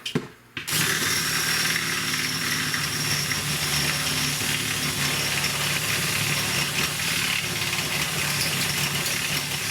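A handheld power tool's motor starts just under a second in and runs steadily under load, cutting into plastic hot enough to give off a burning smell.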